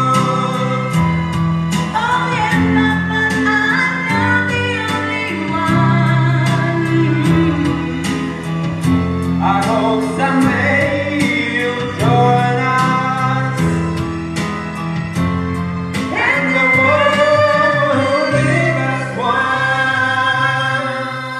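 Karaoke: a man singing into a microphone over an amplified backing track with a steady beat and bass line.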